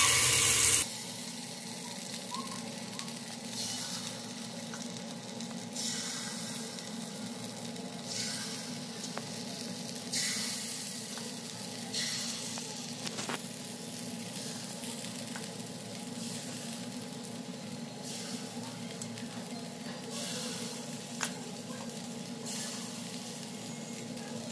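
Semolina batter dropped into the hot oiled cups of an appe pan, sizzling in the oil. The sizzle is loudest in the first second and swells again about every two seconds as each new portion goes in.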